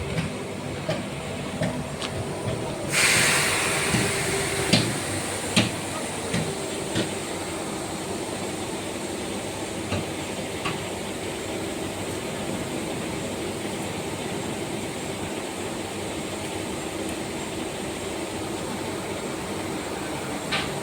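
22 kW (30 hp) fixed-speed screw air compressor running with a steady hum. About three seconds in, a loud hiss of air starts and fades over the next two seconds, with a few sharp clicks.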